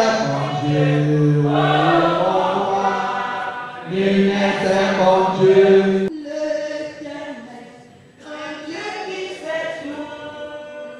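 A church choir or congregation singing a hymn together, holding long chords that include low voices. About six seconds in, the sound turns quieter and higher as a group of women sings, one of them leading into a microphone.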